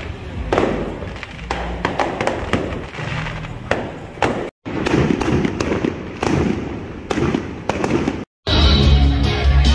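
Fireworks going off in a quick, irregular run of bangs and crackles, with music underneath. The sound breaks off abruptly twice, and near the end it gives way to louder music alone.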